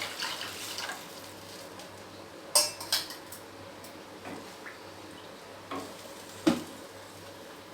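A spoon clinking and scraping against a cooking pan a few times as water just added to fried ginger, garlic and carrot is stirred. A soft hiss fades out in the first second.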